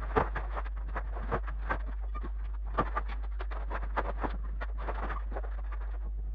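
Rapid, irregular knocks and clicks, several a second and uneven in strength, over a steady low hum.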